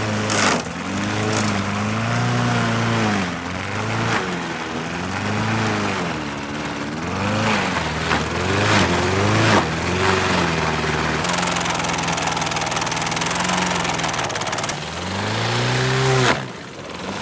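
Toro lawn mower's engine revving up and down over and over, then holding a steady speed for a few seconds before its pitch drops sharply near the end.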